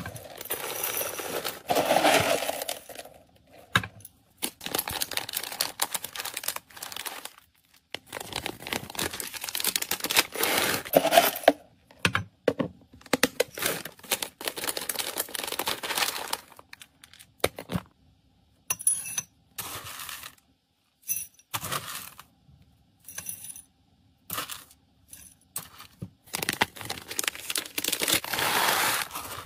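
Dry cat kibble being scooped and poured, the small hard pellets rattling and clinking against a clear bowl, a plastic storage box and a clear zip bag. The pours come in stop-start bursts, with plastic bag crinkling and handling clicks between them.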